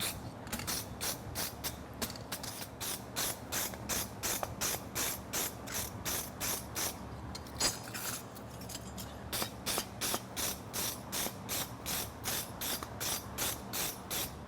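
Rapid hand scraping strokes on a forged steel horseshoe as it is cleaned up, about three strokes a second, pausing briefly about halfway through. A fan hums steadily underneath.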